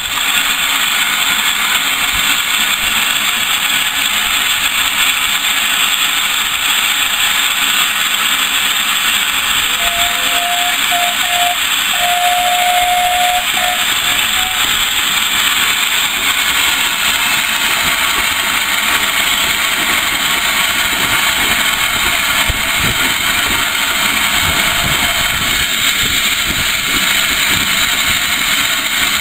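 Steady, loud hiss of steam escaping from a steam locomotive. About ten seconds in, a faint steam whistle gives a couple of short toots and then a longer blast.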